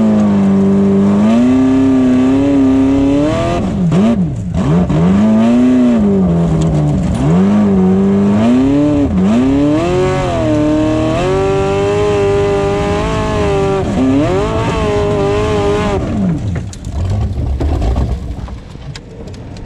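Formula offroad unlimited-class buggy's engine, heard from on board, revving hard and unevenly under full throttle up a hill climb: the pitch repeatedly rises, then drops sharply and recovers several times. About three-quarters of the way through the engine note falls away, leaving a rumbling rush of noise.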